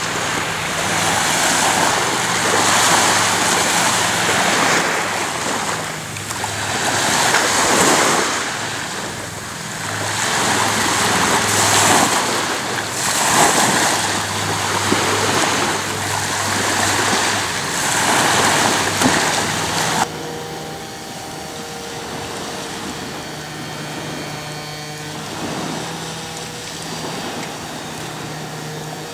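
Small waves washing onto a sandy beach, the surf swelling and falling every few seconds. About two-thirds of the way in the sound cuts to a quieter stretch of shore with a faint low hum that comes and goes.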